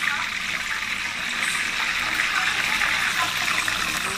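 Boiled chicken pieces deep-frying in a pan of hot oil: a steady sizzle with fine crackling.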